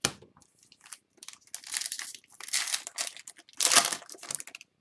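Foil wrapper of a hockey card pack being torn open and crinkled, a quick sharp rip at the start, then a run of crackly bursts, loudest near the end.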